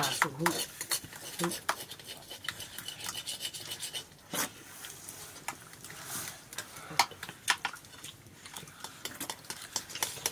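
A metal utensil scraping and clinking against a cooking vessel in irregular strokes, with one sharper knock about four seconds in.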